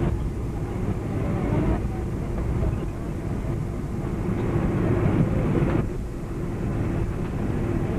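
Cabin noise inside a Boeing 747-400 taxiing after landing: a steady low rumble from the engines and air system, with a steady hum underneath.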